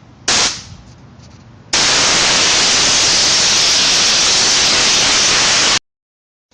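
Compressed air from an air compressor's blow gun blasting through a car radiator to clear out leaves and debris: a short burst, then a loud, steady hiss lasting about four seconds that cuts off suddenly.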